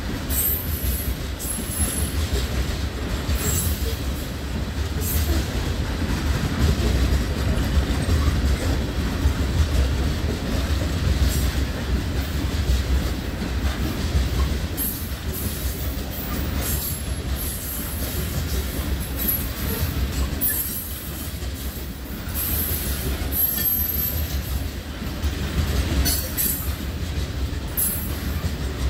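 Freight cars of a BNSF train rolling past: a steady rumble of steel wheels on rail, with high-pitched wheel squeal coming and going.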